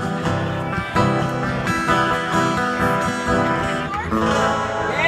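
Live acoustic guitar strumming chords in the closing instrumental bars of a song.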